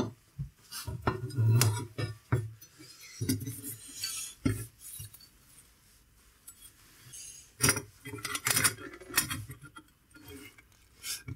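Sheet-metal pieces and hand tools clinking and knocking on a workbench as they are picked up, turned over and set down, in scattered irregular strikes with quiet gaps between them.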